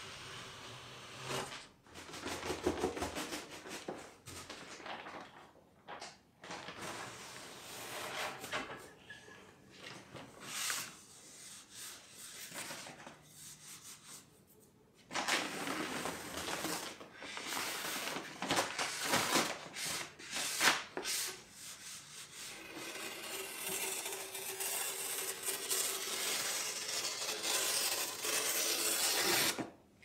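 Palette tape, a self-adhesive paper, being peeled and pressed onto a screen-printing press's base plate: irregular bouts of paper crinkling and rustling with small clicks, then steadier rubbing in the last several seconds as it is smoothed flat with a plastic squeegee. The sound cuts off abruptly at the end.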